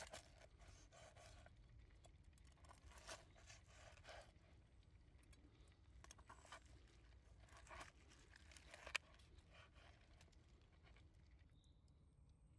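Faint crunching and scraping as a knife cuts through deep-fried, pepper-crusted pork ribs on a wooden board, with a sharp click about nine seconds in.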